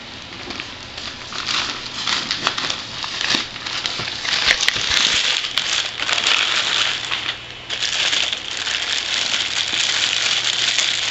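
Packaging crinkling and rustling continuously as a newly opened tripod is unpacked, with scattered small clicks. The rustle drops off briefly about two-thirds of the way through, then resumes.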